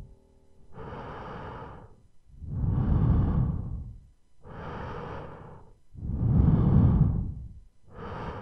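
Slow, heavy breathing used as a horror sound effect: five drawn-out breaths about two seconds apart, alternating louder and softer like inhale and exhale.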